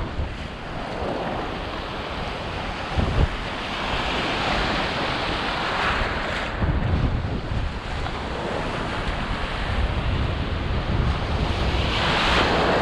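Big waves breaking and washing on a lakeshore in strong wind, with gusts buffeting the microphone. The surf swells up twice, about five seconds in and again near the end.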